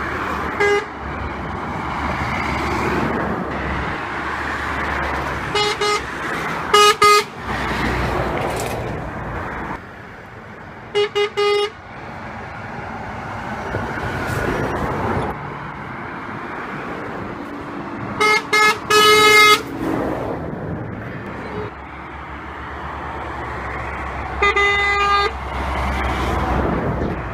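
Lorries passing on a road, with truck horns sounding in short groups of two to four toots about five times over the stretch. Between the toots comes the rising and falling rush of the trucks going by.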